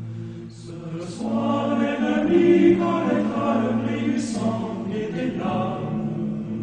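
Vocal music: voices chanting or singing together in long held notes, with a few sharp hissed consonants.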